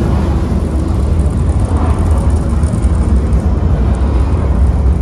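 Deep, steady rumble of a simulated space-elevator launch, played through the speakers of a themed ride cabin.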